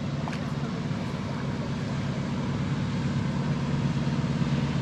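Motorboat engine running with a steady low hum that slowly gets louder.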